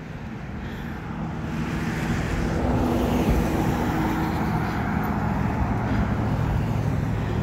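Road traffic passing close by: engine hum and tyre noise that swell over the first couple of seconds and stay loud.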